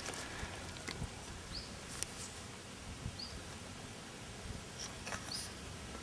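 Quiet outdoor background noise with a few faint, short high chirps every second or two and an occasional sharp click.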